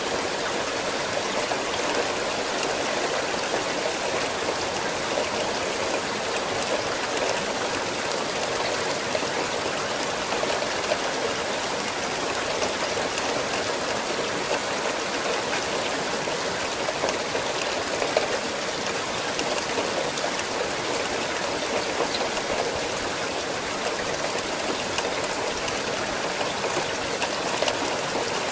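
Steady rain falling: an even hiss of many drops, with the odd louder drop standing out.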